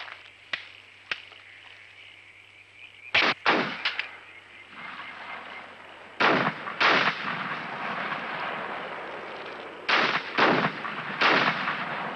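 Gunfire from period muskets: three shots in quick succession about three seconds in, two more around six seconds, and three more near the end.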